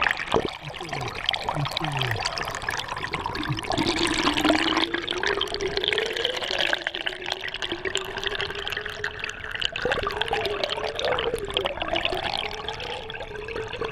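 Flowing river water rushing and bubbling, heard through a submerged camera housing, with a faint wavering hum underneath.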